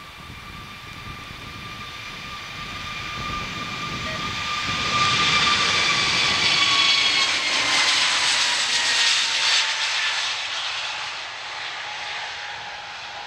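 Airbus A321neo jet engines at takeoff power during the takeoff roll. The sound builds as the airliner approaches and is loudest as it passes, about halfway through. Its high fan whine then drops in pitch as it goes by, and the sound fades as it rotates for liftoff.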